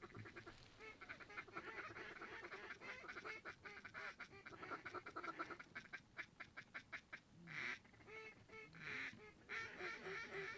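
Faint quacking and chattering of ducks: long runs of rapid short notes, with a few longer calls near the end.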